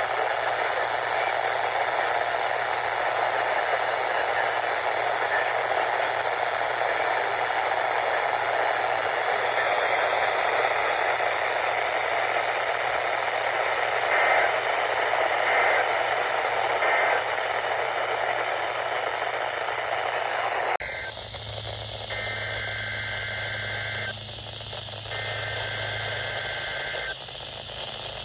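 Weather radio receiver hissing with steady static from a weak or unmodulated signal. About 21 seconds in, the static cuts off sharply to a quieter channel with a low hum and faint steady tones breaking in and out.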